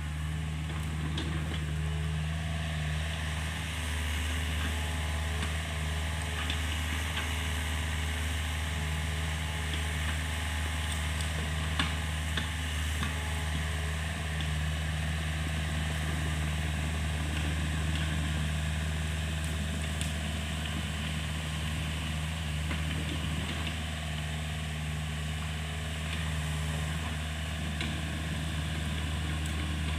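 Hitachi mini excavator's diesel engine running steadily while the machine digs and swings its boom, with a few short sharp knocks, the loudest about twelve seconds in.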